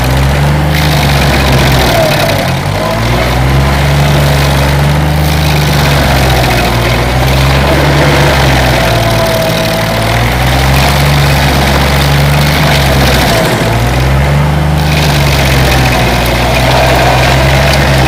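Stump grinder's engine running at full throttle. Its note sags and recovers every four to five seconds as it takes load, under a loud grinding noise.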